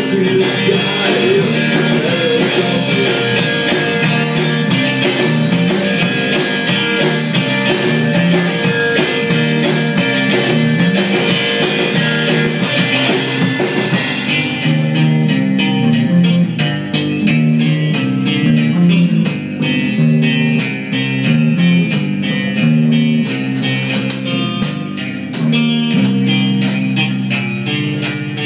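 Live rock band playing an instrumental break: electric guitars over drums. About halfway through the cymbal wash drops out, leaving the guitar lines over sparse sharp hits.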